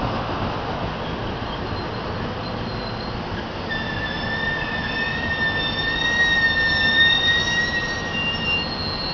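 SEPTA Silverliner IV electric multiple-unit train rolling slowly into a station, with a steady rumble of wheels on rail. About four seconds in a high, steady squeal sets in as the train slows to a stop, loudest near the end and fading just before it.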